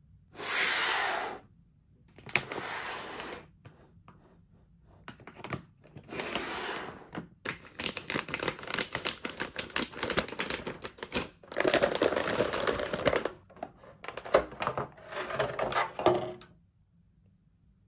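Plastic toy packaging, a bag and a clear plastic tray, being handled and opened by hand: dense crackling and crinkling in irregular bursts. A short noisy burst comes about half a second in, before the handling starts.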